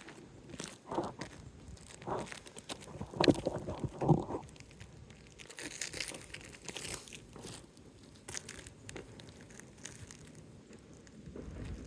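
Asphalt roofing shingles crunching and scraping as they are handled and worked by hand. The noises come in irregular bursts, loudest in the first four or five seconds and fainter after.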